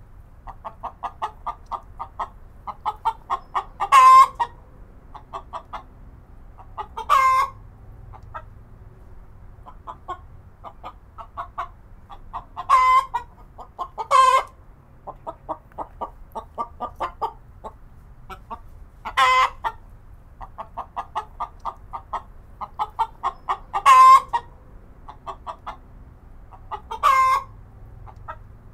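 A chicken clucking in quick runs of short clucks, broken by seven louder, brief squawks spaced a few seconds apart.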